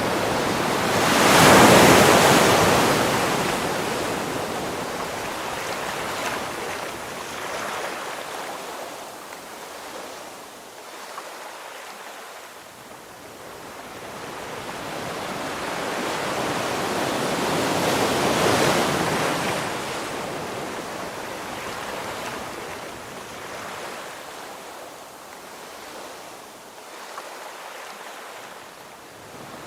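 Ocean waves breaking on a shore: two big waves crash, about two seconds in and again around eighteen seconds in, each washing out slowly into a quieter hiss of surf before the next.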